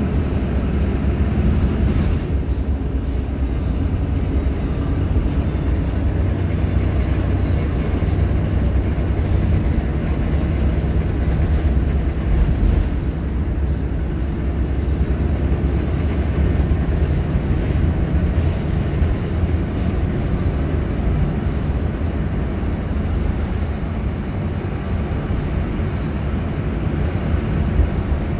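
Volvo B7RLE single-deck bus under way, heard from inside the rear of the saloon: its rear-mounted seven-litre six-cylinder diesel makes a steady low drone under a wash of road noise. A faint click comes twice.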